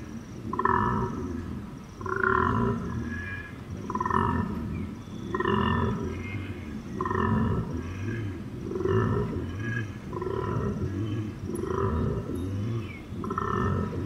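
Koala bellowing: a repeating cycle of deep pulsing rumble and a higher rasping note, about once every second and a half.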